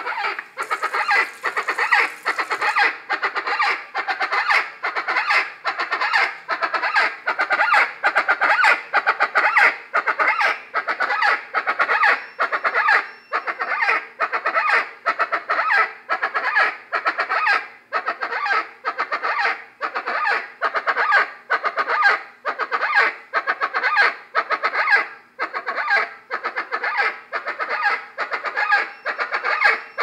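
Chachalaca (guacharaca) calling over and over, about three calls every two seconds without a break.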